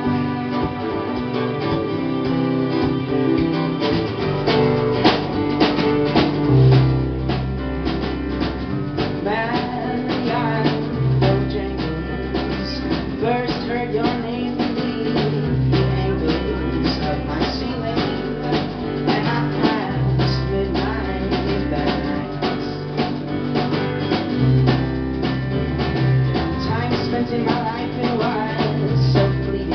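Indie folk band playing live: violin over acoustic guitar at first, then drums and bass come in about four seconds in, and from about nine seconds a man sings over strummed acoustic guitar and keyboard.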